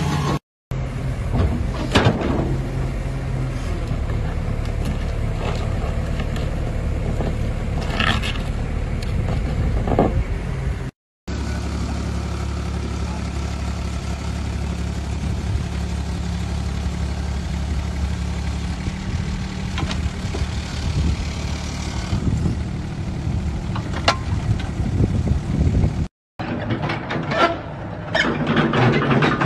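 Diesel excavator engines running under work, heard in three clips cut one after another. The first has a few sharp knocks, the second a steady drone, and in the last the noise grows busier with clatter near the end.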